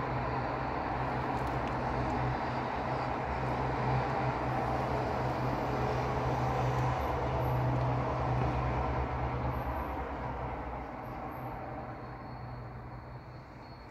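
Road traffic at a busy junction: a steady wash of engine and tyre noise under a deep engine drone that fades away about ten seconds in.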